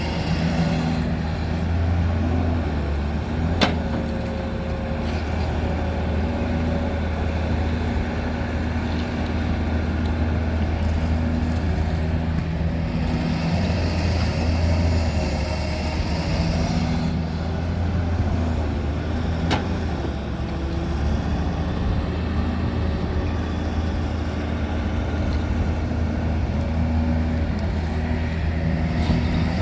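Diesel engine of an excavator loading mud into a dump truck, running steadily, with two sharp clanks, one a few seconds in and one about two-thirds of the way through.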